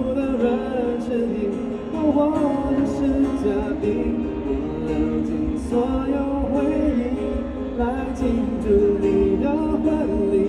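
A man singing a Mandarin ballad into a microphone while playing an acoustic guitar.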